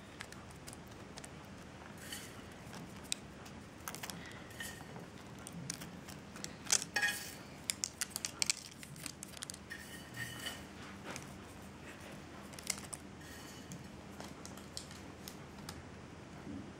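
Toasted sesame seeds being sprinkled by hand over dough rings on a paper-lined baking tray: faint rustling with scattered light ticks, and a cluster of sharper clicks about seven to nine seconds in.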